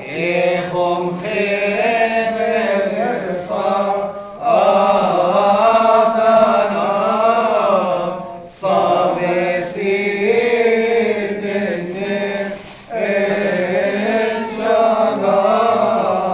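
Coptic Orthodox liturgical chant: a slow hymn sung in long, winding phrases, each broken by a short pause about every four seconds, over a steady low held note.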